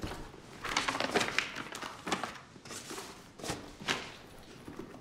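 Papers and leather rustling and knocking as hands rummage through an open leather briefcase, in a run of short bursts.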